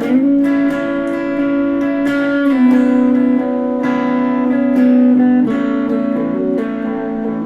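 Les Paul electric guitar played through an amp: a slow melodic line of long, sustained single notes, changing about once a second, some held with vibrato.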